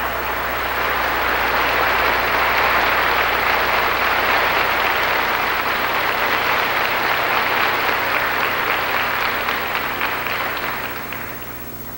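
Congregation applauding, building up over the first couple of seconds and dying away near the end.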